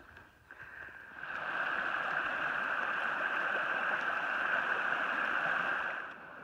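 Shallow creek rushing and gurgling over rocks. It swells up about a second in and stops abruptly near the end.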